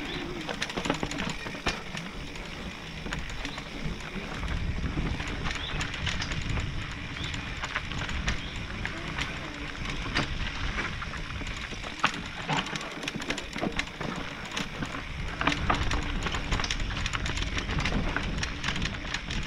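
Mountain bike rolling down a dirt singletrack: steady tyre and trail noise with a low rumble, and frequent sharp clicks and knocks as the bike rattles over the ground.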